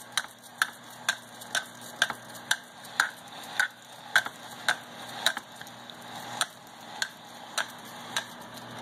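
Pampered Chef veggie spiralizer being cranked through a yellow squash, giving a regular click about twice a second.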